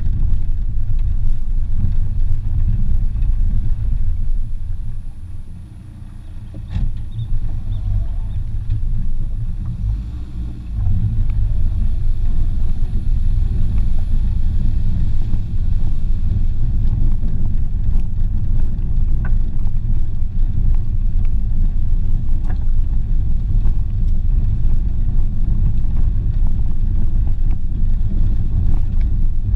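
Renault Clio driving along a rough dirt trail, heard from a camera on its hood: a loud, steady low rumble of the car on the move. It drops quieter for a few seconds about five seconds in, with one sharp knock, then rises back to full level.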